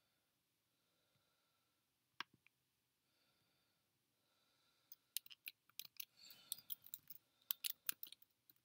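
Faint computer keyboard clicks: a single click about two seconds in, then a quick, irregular run of keystrokes from about five seconds in as a file name is typed.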